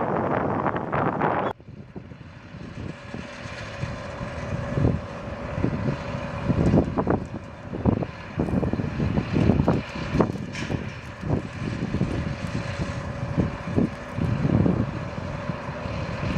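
Wind buffets the microphone; then, after a cut about a second and a half in, an airliner's engines run with a steady whining tone under repeated gusts of wind noise.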